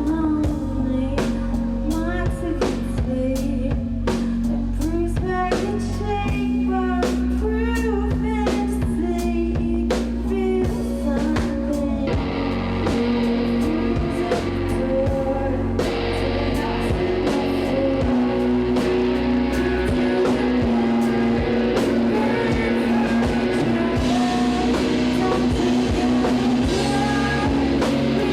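Live rock band playing, with drum kit, guitars and singing; the sound gets fuller and brighter about twelve seconds in.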